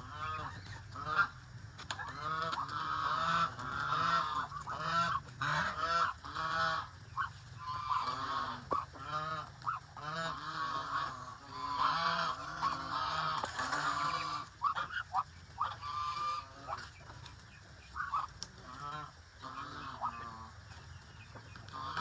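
Flock of domestic waterfowl, young Muscovy ducks and a white goose, calling over and over while they feed from a tray. The calls are short, pitched and overlap one another.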